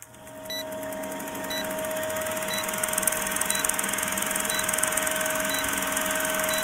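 Old film-projector countdown leader sound effect: a projector running with a steady hum, film crackle and hiss, and a faint short high blip about once a second as the numbers count down. It fades in over the first second.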